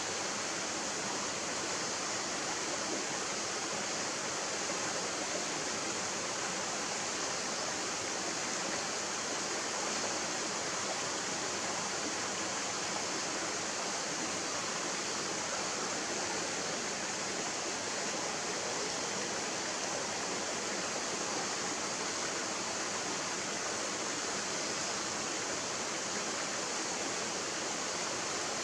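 Shallow mountain stream running over rocks and small riffles: a steady, hissy rush of water that never changes.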